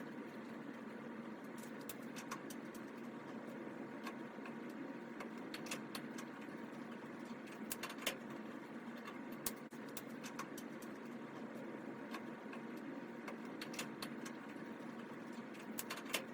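Scattered sharp clicks and light knocks of tools and hands working on a clothes dryer's panels and parts during disassembly, over a steady background hiss.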